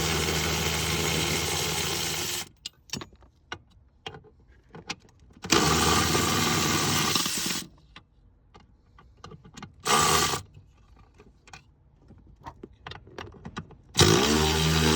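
A cordless power tool spinning out bolts from the pedal assembly bracket in four runs: about two seconds, another two seconds, a short blip, then another run starting near the end. Between runs come scattered light metallic clicks and clinks of the tool, socket and bolts.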